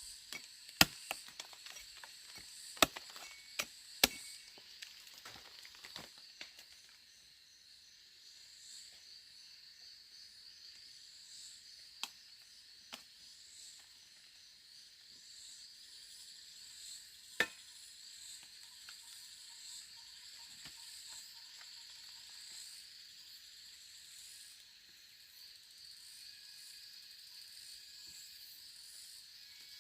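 Insects chirring steadily in a high, pulsing drone. Several sharp knocks or snaps in the first few seconds, and single ones about twelve and seventeen seconds in.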